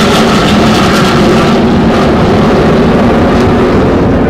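BAE Hawk jet trainer's single Rolls-Royce Adour turbofan roaring overhead as the jet flies away, its pitch sliding slightly down; the high whine drops away about a second and a half in, leaving a steady low rumble.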